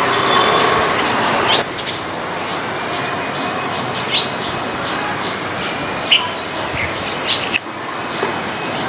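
Small birds chirping and whistling in many short, high calls over a steady background rumble. The rumble is heavier for the first second and a half, then drops off abruptly.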